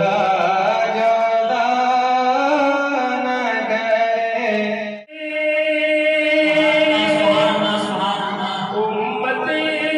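A man singing a Punjabi naat (devotional song in praise of the Prophet) into a microphone. He holds long, drawn-out notes and slides between them, with a brief breath break about halfway through.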